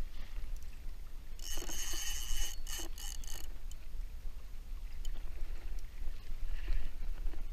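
Water lapping against a plastic kayak and wind rumbling on the microphone, while a big-game spinning reel buzzs briefly with a high whir and clicks about a second and a half in, as line is worked on a hooked fish.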